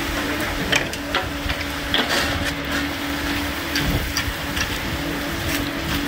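Concrete pump running steadily with a constant low hum, with scattered short clicks and knocks from work in the wet concrete.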